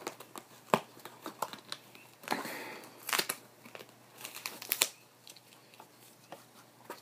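A mailed package being opened by hand: packaging crinkling and tearing, with a few sharp clicks and taps. Busiest in the first five seconds, then quieter.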